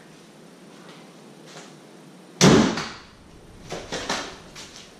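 Dodge Ram pickup's hood slammed shut about two and a half seconds in: a single loud bang that rings briefly. A few fainter knocks follow.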